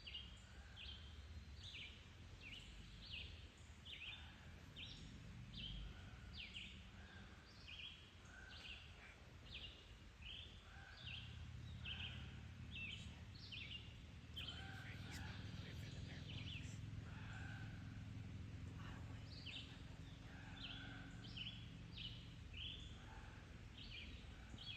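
Faint birdsong in woodland: short high chirps repeated about twice a second, with some lower notes between them. A low steady rumble comes in about ten seconds in.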